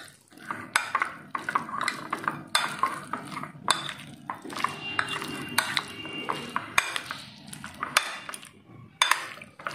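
Steel spoon stirring a thick mayonnaise-and-corn mixture in a glass bowl, with irregular clinks and scrapes of the spoon against the glass.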